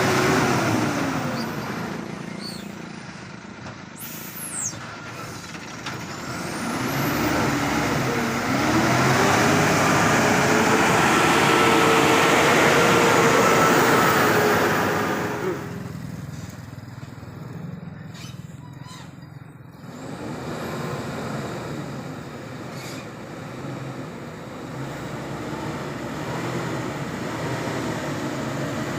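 Hino 500 Euro 4 truck's diesel engine pulling under load, its pitch falling and rising as it revs through the gears. It is loudest for several seconds past the middle, drops suddenly about halfway through, then builds again.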